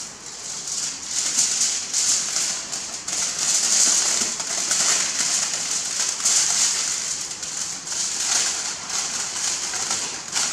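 Aluminium foil crinkling and rustling in uneven surges as it is folded and pressed around a pile of food.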